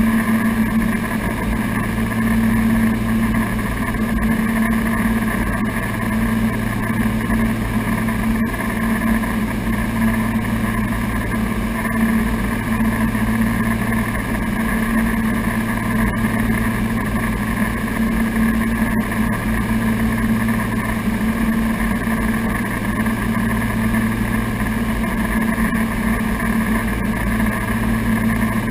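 Piper Navajo's twin piston engines and propellers droning steadily in cruise, heard inside the cockpit. The low hum swells and fades slowly every few seconds.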